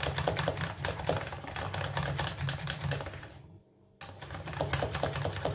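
Wire whisk beating thick lemon cream in a metal saucepan: rapid clicking of the wires against the pan. It stops briefly about three and a half seconds in, then starts again.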